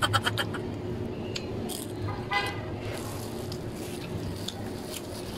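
Steady low background hum with a vehicle horn tooting once, briefly, a little over two seconds in, and light crinkling of a plastic bag of cooked rice being handled.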